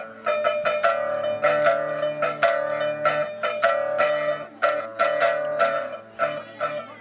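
Pipa, the pear-shaped Chinese lute, plucked in a quick run of notes with sharp attacks and ringing overtones, playing a Chinese folk tune.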